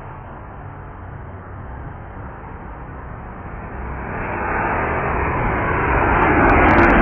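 Boeing 737-700 jet engines getting steadily louder as the airliner comes in low overhead on approach to land, the noise building from about three and a half seconds in until it is loudest near the end.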